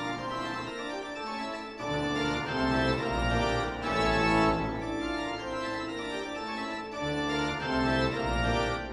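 Background music: sustained organ-like chords over a bass line that changes note every second or so.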